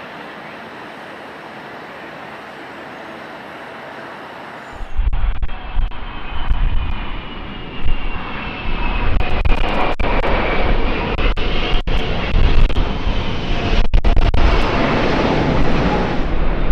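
Large jet airliner's engines: a steady hiss, then from about five seconds in a loud, heavy rumble with a high engine whine that glides in pitch as the jet passes close by.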